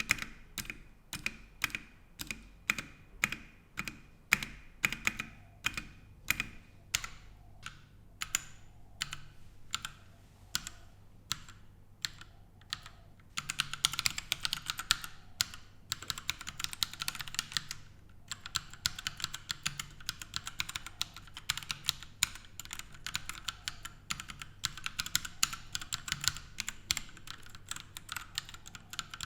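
Royal Kludge RK100 mechanical keyboard with linear red switches and ABS keycaps being typed on: single keystrokes about two a second for the first dozen seconds, then fast continuous typing with a short pause about two-thirds of the way through.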